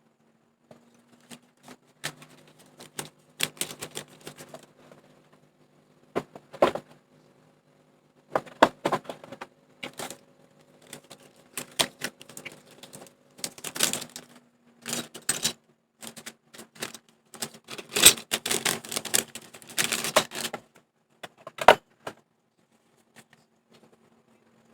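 Mechanical keyboard being typed on: irregular flurries of sharp key clicks, separated by short pauses.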